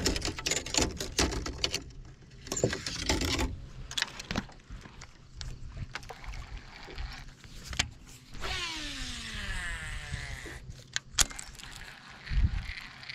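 Clicks and knocks of fishing gear being handled on a boat, then a whine that falls steadily in pitch for about two seconds and a sharp click near the end.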